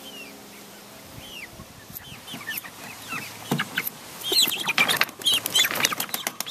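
A coop of white meat chickens clucking with short, falling calls, which grow busier and louder about two-thirds of the way in as one bird is grabbed. Knocks and scuffling from the handling come with them.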